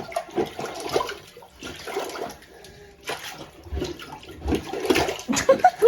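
Water sloshing and gurgling in a clogged toilet bowl, coming in uneven bursts with a few low thumps about midway.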